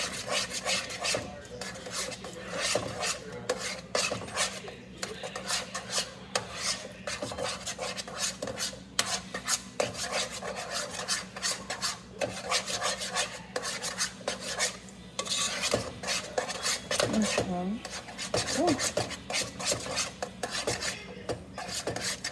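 A utensil scraping and stirring thick mashed potatoes in a pot, in quick repeated strokes.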